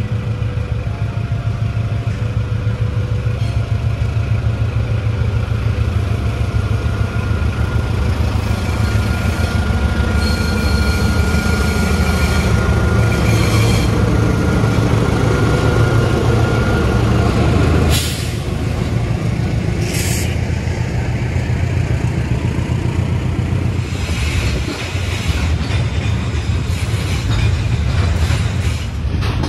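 Container freight train passing close by: the KAI diesel-electric locomotive's engine rumbling as it goes past, then a long string of loaded container flatcars rolling by, their wheels clattering on the rails.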